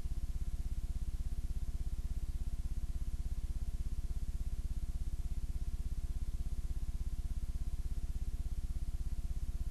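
Steady low electrical hum with a fast, even buzzing flutter, unchanging throughout: hum on the videotape's audio track after the programme has ended.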